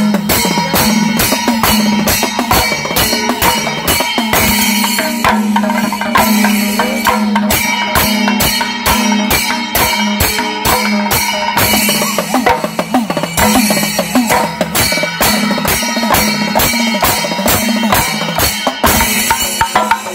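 Kerala temple percussion ensemble: hourglass thimila drums played with the fingers together with stick-beaten chenda drums, a loud, fast, dense rhythm of many strokes without a break.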